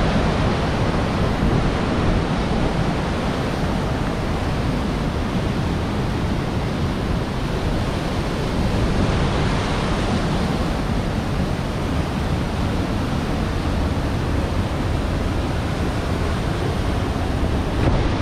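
Steady rushing noise of wind buffeting the microphone, mixed with the rush of a snowmelt stream.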